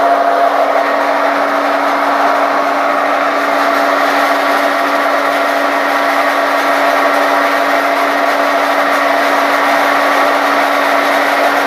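MGL400 pellet press running steadily while pelletising fir sawdust: a constant mechanical hum with one steady low tone under a dense grinding noise, unchanging throughout.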